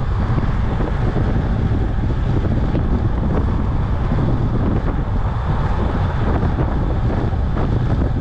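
Wind rushing over the microphone of a camera on a moving road bike, a steady low rumble with no breaks.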